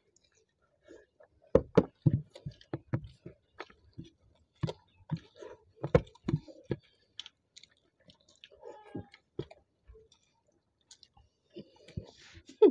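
Two people eating rice by hand from plastic plates: chewing with a dense run of sharp clicks and taps from about one and a half to seven seconds in, then only scattered ones.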